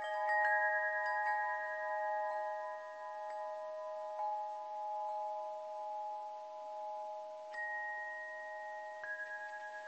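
Chimes ringing: a few metallic strikes in the first second or so, their clear tones holding and overlapping, then single new strikes about seven and a half and nine seconds in.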